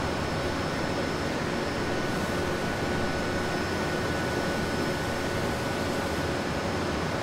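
Steady car assembly-hall din: a constant rush of ventilation and machinery, with a few faint, unbroken high whines.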